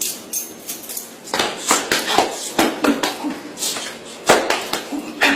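Balisong (butterfly knife) flipped open and closed, its metal handles clicking and clattering against each other in quick, irregular strokes, with a louder sharp clack about four seconds in.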